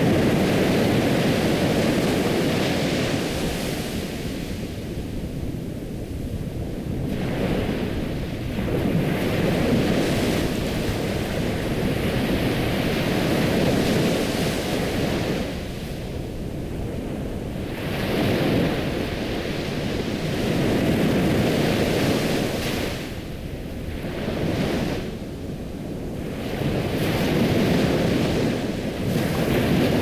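Ocean surf: waves breaking and washing in, the rush of water swelling and easing every few seconds.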